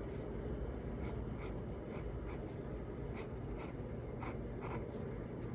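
Pelikan M200 fountain pen's extra-fine, gold-plated steel nib scratching across paper in short, irregular strokes, over a steady low background hum.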